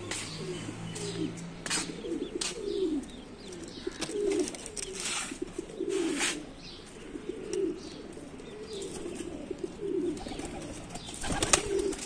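Domestic pigeons cooing over and over in their coop, a low rolling coo about once a second. A few sharp clicks are heard, and there is a louder noisy stretch near the end.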